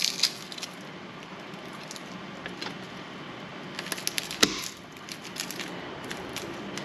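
Garlic cloves peeled by hand with a few faint papery crackles, then a fillet knife cutting garlic on a plastic cutting board: a cluster of sharp clicks about four seconds in, the loudest a single crack.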